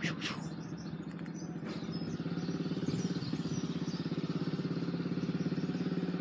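Motorcycle engine idling with a fast, even pulse, growing somewhat louder about three seconds in.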